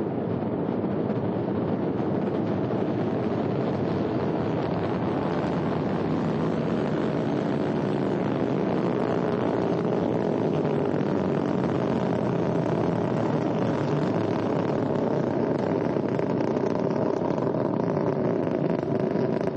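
Ariane 5 rocket climbing after liftoff, its two solid boosters and Vulcain core engine making a loud, steady roar.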